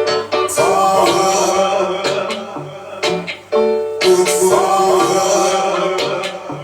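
Dub reggae track mixed live from its stems: bass and drums with a voice singing sustained lines over them.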